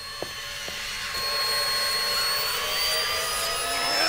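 Vacuum cleaner running with a high whine that rises slowly in pitch and grows louder. A few light clicks come in the first second.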